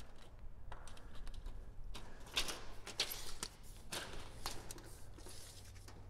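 Faint scattered clicks and short rattles of a steel tape measure being handled and its blade pulled out, over a low steady hum.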